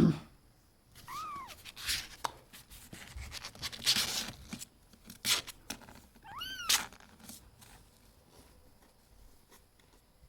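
Kitten meowing twice, high thin calls that rise and fall in pitch, about a second in and again about six seconds in. A few short noises come between the two meows.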